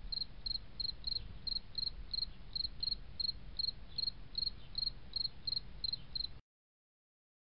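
Insect chirping, a steady train of short high chirps about three a second over a faint low rumble, cutting off suddenly near the end.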